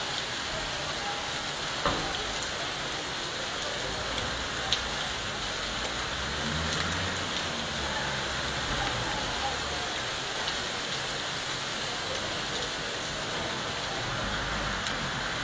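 Hail and rain falling in a steady patter on hard surfaces, with two sharper knocks a few seconds apart early on.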